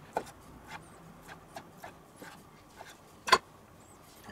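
Chef's knife cutting meat on a wooden cutting board: a knock just after the start, a few light scattered taps, then one louder sharp knock a little after three seconds in.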